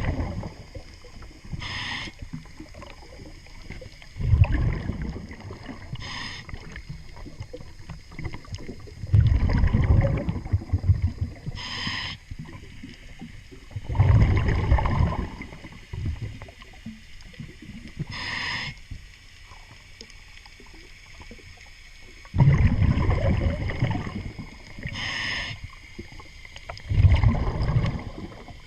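Scuba diver breathing through a regulator underwater: a short hiss on each inhale, then a louder low burble of exhaled bubbles, repeating about every four to five seconds.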